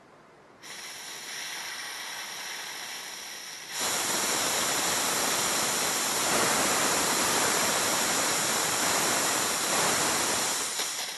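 Compressed air hissing out of the bleed valve of a Hatsan high-pressure PCP foot pump as the filling line is depressurised from about 200 bar. The hiss starts about half a second in, turns louder about four seconds in, and tails off near the end as the pressure runs down.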